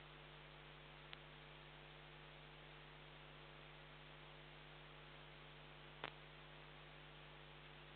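Near silence: the steady electrical hum and hiss of a security camera's audio, with two faint clicks, one about a second in and one about six seconds in.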